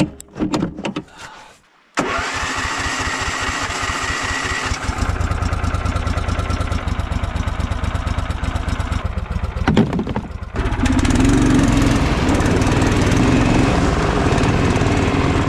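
Small engine of a Snowdog tracked snow machine catching suddenly about two seconds in after a few knocks, then running steadily. Around ten seconds in it picks up and runs louder as the machine drives off.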